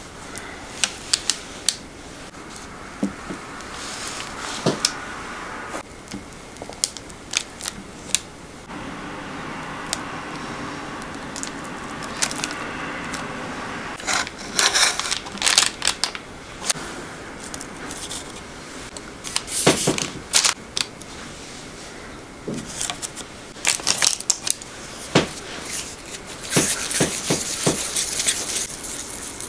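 Kitchen knife blades clicking and tapping against a cutting board as they cut through a chilled sheet of ganache, with brief scrapes of the blade and rustling of parchment paper. A longer stretch of paper crinkling comes near the end.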